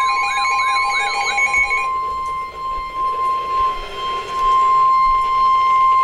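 Emergency Alert System flash flood warning alarm from a weather alert radio: a steady single tone of about 1 kHz, the NOAA Weather Radio warning alarm tone. For about the first two seconds a fast, warbling, siren-like alert tone sounds over it, then stops.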